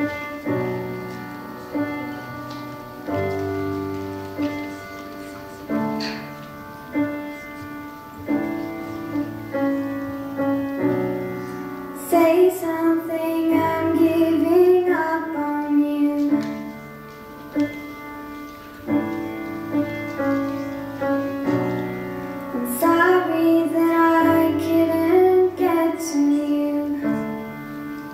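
A girl sings while accompanying herself on a Steinway grand piano. Piano chords play alone for about the first twelve seconds, then her voice comes in for two phrases with piano between them.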